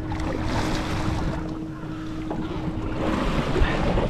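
Wind buffeting the microphone and choppy sea water lapping around a small boat, under a steady hum.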